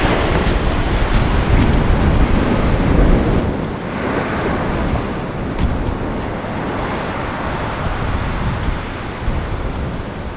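High storm surf washing in, with strong wind buffeting the microphone and a heavy low rumble. About three and a half seconds in the sound drops to quieter surf, with waves breaking against a seawall.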